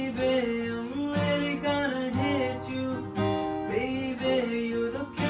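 Acoustic guitar strumming under a male voice singing wordless, sliding vocal runs.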